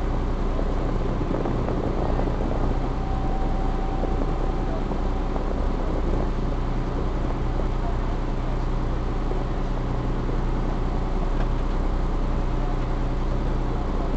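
Engine of a small river ferry running steadily while under way, a constant low hum.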